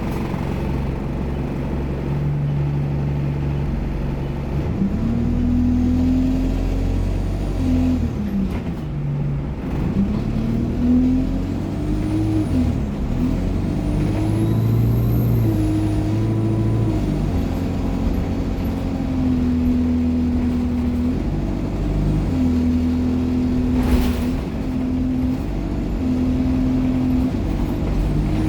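ADL Enviro200 single-deck bus under way through its Allison automatic gearbox. The engine note rises and drops several times as it goes through the gears, with a faint high turbo whine rising and falling over it. There is one short sharp hiss about two-thirds of the way through.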